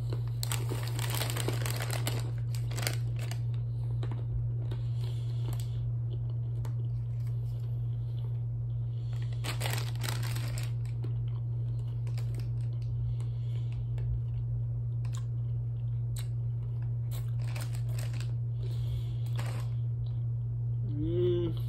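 Mixed nuts being eaten: a snack bag crinkles in two bursts, about a second in and again around ten seconds, with crunching and chewing between, over a steady low hum. Near the end comes a brief hummed "mm".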